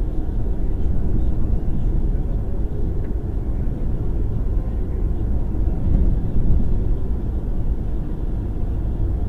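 Vehicle cabin noise while driving: a steady low rumble of engine and tyres on a snow-covered road, heard from inside the car.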